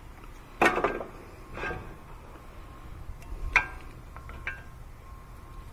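Metal brake parts clanking and clinking as a front brake caliper is worked off the rotor. There are several separate knocks with a short metallic ring, the loudest about half a second in, then lighter ticks later.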